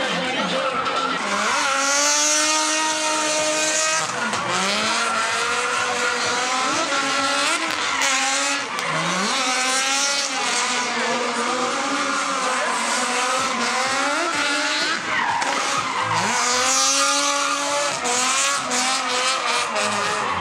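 Cars doing donuts and drifts, engines revving up and down over and over while the tires squeal and skid.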